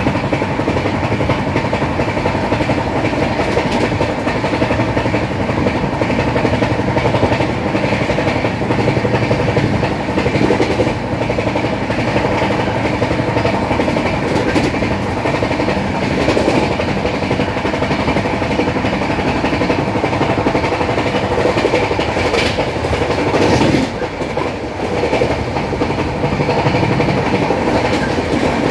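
Track sound of an Indian Railways LHB passenger coach running at speed, heard from its open door: a loud, steady rumble of wheels on rail with a few sharper clacks over rail joints.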